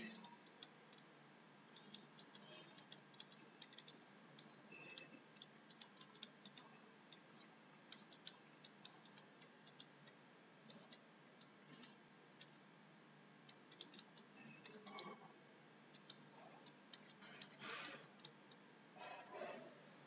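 Faint, irregular clicks and light scratches of a stylus tapping and writing on a pen tablet or touchscreen as a formula is handwritten.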